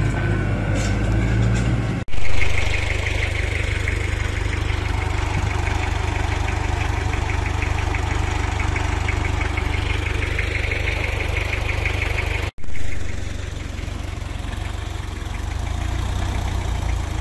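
Farm tractor's diesel engine running steadily under load as it tows a truck stuck in mud. The sound breaks off for an instant twice, about two and about twelve seconds in.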